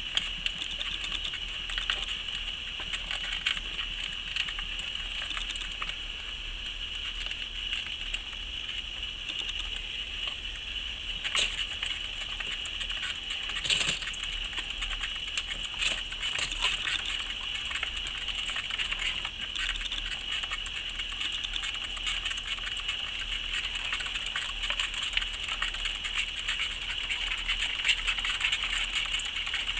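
Plastic exercise wheels spinning as highland streaked tenrecs run in them: a steady rapid pattering and rattling of small feet and turning wheels, with two sharper knocks near the middle.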